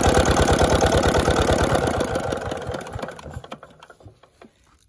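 Single-cylinder diesel engine of a tube-well water pump being shut off: its regular firing thuds slow down and fade over a couple of seconds, and the engine runs down to a stop near the end.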